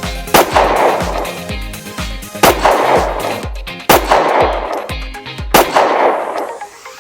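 Four gunshot sound effects, each a sharp crack with a long echoing tail, spaced about one and a half to two seconds apart, over background music with a steady bass beat.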